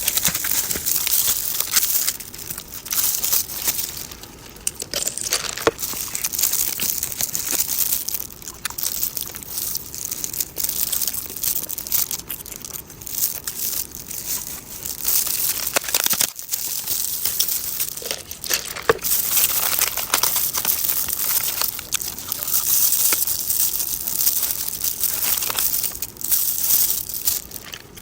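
Close-miked eating of a hamburger: a continuous crisp crinkling and crackling, coming in uneven bursts with short lulls.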